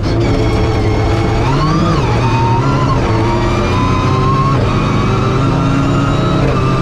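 Rally car engine pulling hard at speed, heard from inside the cockpit. The revs climb and drop sharply about two seconds in, climb again, and drop about four and a half seconds in, as at gear changes.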